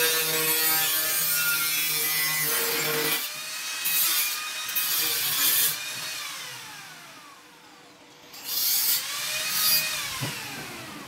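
Handheld electric angle grinder with an abrasive disc grinding a stainless steel bar: a steady motor whine with grinding hiss for about three seconds, then stops sharply. After a few short grinding bursts it is switched off and winds down with a falling whine. It then spins back up with a rising whine, grinds briefly and winds down again near the end.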